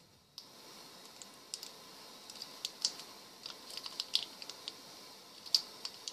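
Irregular small clicks and crinkles from a plastic ketchup sachet being squeezed against a metal spoon, over a steady faint hiss that starts just after the beginning.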